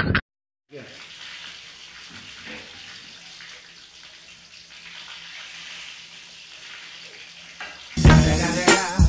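Steady faint hiss with a low hum underneath. About eight seconds in, loud music with a strong regular beat suddenly starts.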